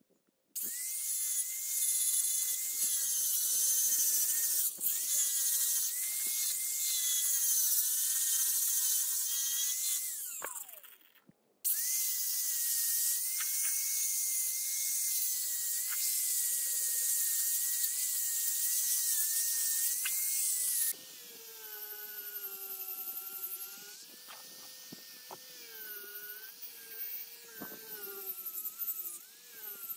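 A handheld electric grinder runs with a fine sanding disc against a steel hammer head: a loud hiss from the abrasive over a motor whine that wavers in pitch as it is pressed. It stops briefly about ten seconds in and starts again. About twenty seconds in it becomes markedly quieter, with the whine carrying on, as a felt buffing wheel polishes the steel.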